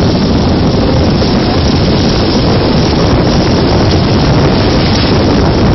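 Wind rushing over the microphone of a phone held out of a moving car, a loud, even rush with no break that drowns out other sound.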